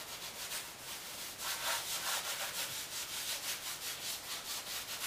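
Damp sponge rubbing acrylic paint onto a gesso-textured canvas in quick, repeated scrubbing strokes, several a second.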